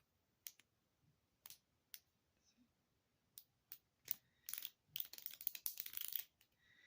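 Plastic links of a Wacky Tracks snap-and-click fidget chain clicking as they are twisted into a shape: scattered single clicks, then a quick run of clicks about two thirds of the way in.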